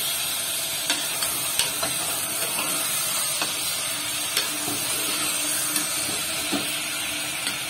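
Chicken pieces sizzling in hot oil in an aluminium pressure-cooker pot as they are sautéed, stirred with a steel ladle that knocks and scrapes against the pot now and then.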